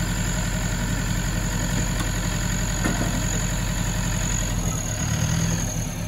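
Off-road vehicle's engine idling steadily, its note changing about five seconds in.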